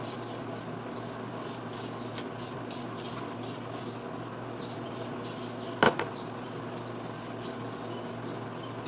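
Hand-held trigger spray bottle misting water onto laundry for ironing: a quick run of short squirts over the first few seconds, a brief pause, then three more. A single sharp knock comes just before the six-second mark.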